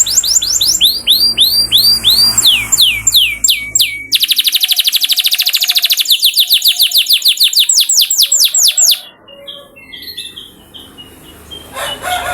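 Domestic canary singing: a run of quick, high, downward-sweeping notes, then a very fast rolling trill. About nine seconds in, the song gives way to much quieter scattered chirps.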